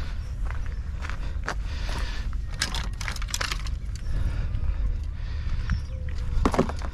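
Fishing rods and reels being picked up and carried, their blanks and reel parts clicking and rattling in a scatter of small clatters, thickest about three seconds in, over a steady low rumble.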